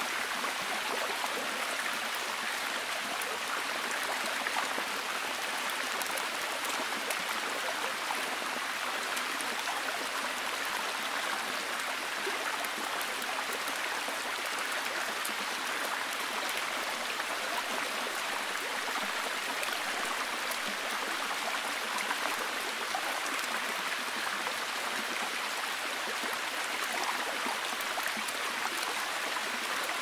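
Steady rain falling: an even, unbroken hiss of water with many small drop ticks scattered through it.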